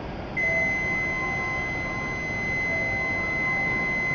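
A steady, high-pitched electronic warning tone starts about half a second in and holds without a break over a low station hum. It is the door-closing warning sounding as the Shinkansen's doors close for departure.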